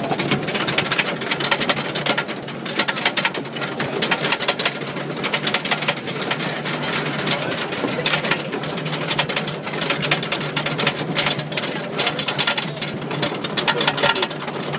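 Roller coaster train climbing the lift hill. The lift chain and anti-rollback dogs make a rapid, steady clacking.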